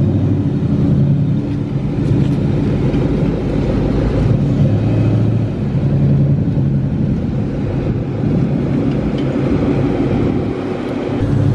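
2002 Ford Mustang GT's 4.6-litre two-valve V8 running at low speed as the car rolls past and drives away, a loud, steady low exhaust note.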